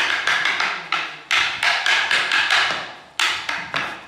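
Short wooden fighting sticks clashing in rapid Kalaripayattu stick sparring: a quick run of sharp clacks, about four or five a second, each with a brief ringing tail, pausing briefly near the end before the strikes resume.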